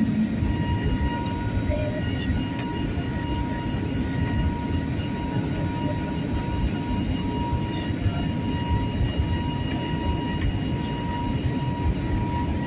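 Steady airliner cabin noise in flight: a low rumble of engines and airflow with a thin, steady whine above it.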